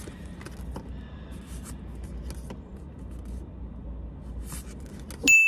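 Trading cards being handled and shifted in the hand: small scattered clicks and rustles over a low steady hum inside a car. Near the end a loud ding sound effect cuts in and rings on one high tone.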